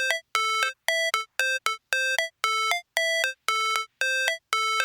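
Electronic background music: a melody of short, evenly spaced synth notes, about three a second, hopping among a few pitches with brief silent gaps between them.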